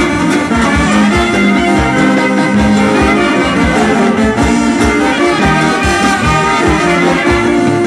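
Greek Macedonian brass band (chalkina) playing folk dance music: a brass melody over a steady beat.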